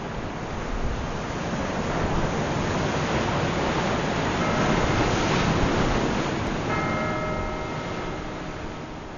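Surf breaking over rocks, a steady rush of waves that swells in the middle. From about seven seconds in, sustained ringing tones join it.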